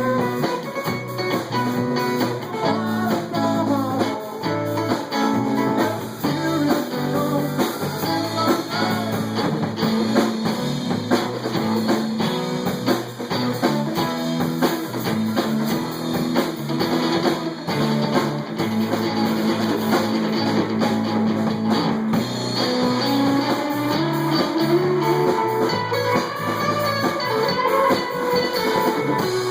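Live band playing an instrumental passage of a song, guitar to the fore with a drum kit behind it.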